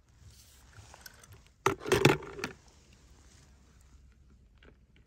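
Die-cast toy car and plastic tub being handled: a short rattling clatter about two seconds in, then a few faint small splashes and ticks as a hand moves through water in the tub.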